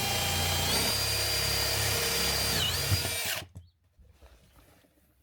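Cordless power drill running at a steady whine. It steps up in speed a little under a second in, dips briefly near three seconds, then stops abruptly.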